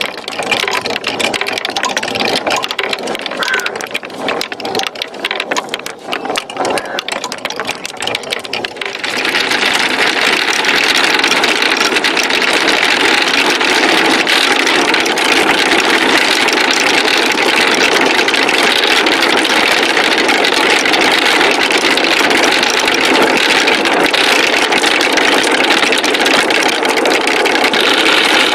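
Marbles clicking and rolling down a wooden marble-run slope. The separate clacks merge about nine seconds in into a continuous dense rolling rattle as many marbles run at once.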